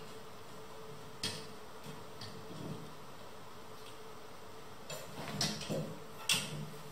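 Scattered clicks and knocks of hands handling a metal rocking-chair frame and its bolted joint: one sharp click about a second in, then a cluster of knocks and handling noise near the end.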